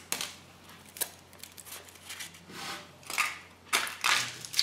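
A few short clicks and rustles of hands handling a freshly unwrapped Kinder Surprise chocolate egg and a scrap of its foil wrapper, with a sharp click about a second in and a cluster of rustles near the end.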